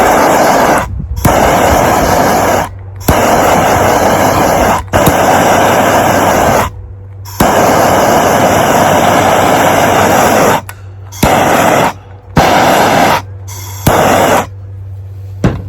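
Handheld gas torch flame blowing hard, triggered on and off in about eight bursts of a second to three seconds each. It is heating a solder seal connector's heat-shrink to shrink the tubing and melt the solder.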